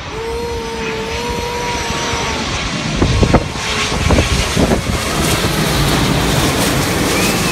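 Twin-engine jet airliner on landing approach, passing low overhead with its gear down. A steady whine comes first, then a broad rush of jet noise that grows louder as the plane comes over, with a few brief thumps in the middle.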